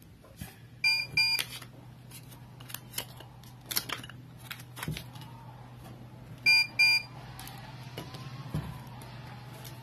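Two pairs of short electronic beeps, about five and a half seconds apart, over a steady low hum. Between them come light taps and rustles as paper transfer sheets and metal keychain blanks are handled.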